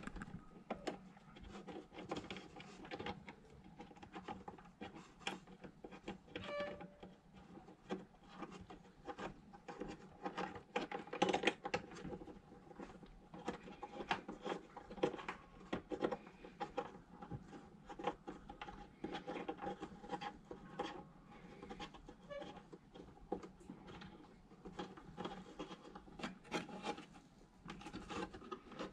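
Hands fitting a small display and its cable into a console panel: a continual run of small clicks, rubs and scrapes, loudest about eleven seconds in, over a faint steady hum.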